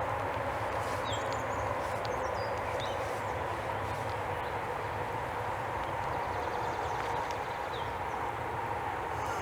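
Steady outdoor background hum with a low rumble, with a few faint, short, high chirps scattered through it.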